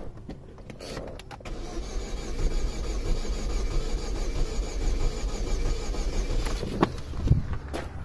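2005 Saturn Ion's 2.2-litre four-cylinder engine turning over on the starter without firing, for about five seconds from about a second and a half in. This is a crank-no-start engine that a previous shop said had jumped timing.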